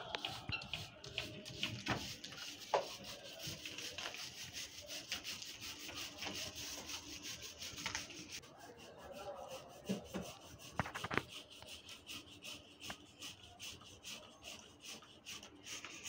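Rubbing and scraping as the inside of a ceiling cassette air conditioner's blower housing is wiped clean by hand, in quick strokes for about the first half, then sparser, with a few sharper knocks.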